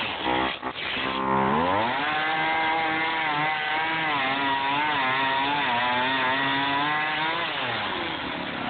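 Gas chainsaw cutting through an EPS foam block. The engine dips briefly about half a second in, revs up over the next second and holds at high speed with a slight waver for about five seconds, then drops back toward idle near the end.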